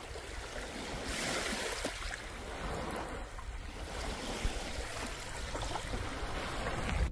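Steady wash of small sea waves on a sandy beach, with a low rumble under it.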